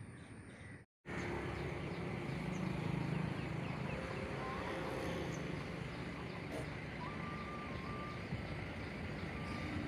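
Insects chirp for about the first second, then after a sudden cut diesel tipper trucks run steadily at a construction site, with a few short beeps in the second half.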